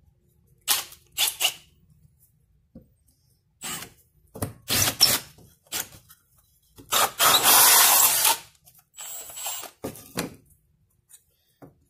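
Cordless drill spinning a hole saw through a square of drywall: a few short bursts, then a loud cut lasting about a second and a half, about seven seconds in.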